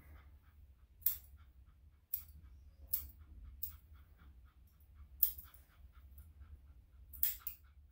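Grooming scissors snipping the hair between the pads of a Yorkshire Terrier's paw: several sharp snips a second or so apart, with two or three in quick succession near the end.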